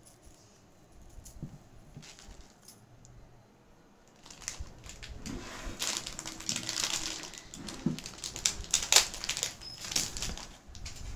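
Paper wrapping rustling and crinkling as a piece of jewellery is unwrapped, with many small sharp clicks of metal jewellery being handled. It is faint at first and turns busy from about four seconds in.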